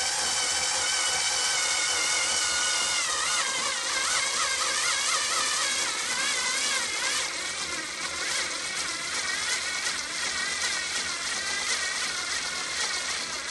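Makita 3.6V cordless pencil screwdriver running under heavy load as it drives a 2.5-inch No. 10 wood screw into a wooden block. Its whine sags in pitch early on and wavers through the middle as the motor labours.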